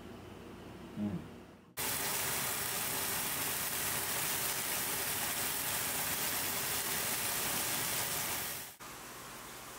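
Two peppered pieces of meat searing in a frying pan over a gas burner: a loud, even sizzle that starts abruptly about two seconds in and cuts off near the end. A brief low sound comes about a second in, before the sizzle.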